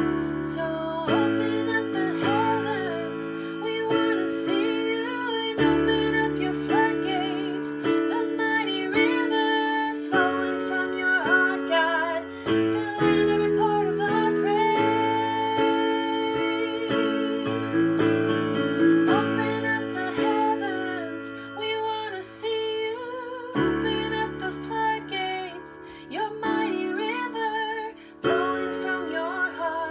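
Music: a woman singing a worship song over held chords from instruments such as guitar and keyboard.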